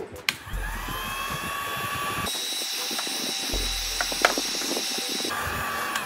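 Heat gun switched on and blowing hot air onto a phone's cracked back glass to soften the adhesive: a steady rush of air with a motor whine that climbs in pitch as it spins up, then holds, with a few small clicks.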